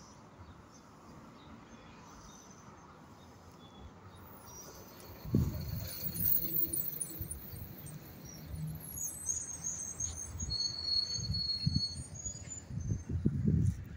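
Outdoor ambience with faint high-pitched chirping, and irregular low rumbling gusts on the microphone from about five seconds in.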